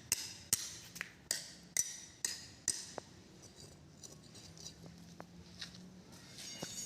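A run of sharp metallic clinks, about two a second for the first three seconds, then a few scattered fainter ticks.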